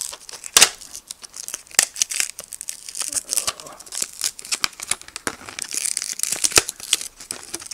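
Plastic blister packaging of coin-cell batteries crinkling and crackling as it is bent and pried open, with irregular sharp clicks and snaps.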